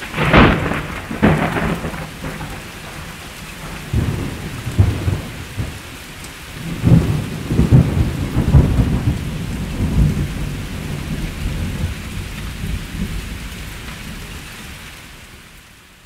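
Thunderstorm with steady rain: sharp thunderclaps in the first second or two, then long rolling rumbles of thunder that swell in the middle and die away near the end, over the constant hiss of heavy rain.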